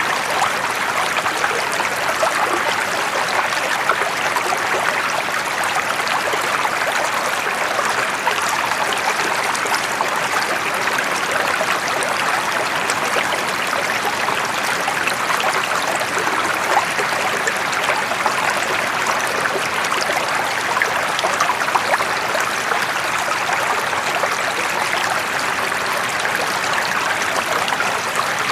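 Running water flowing steadily and evenly, with no pauses or changes.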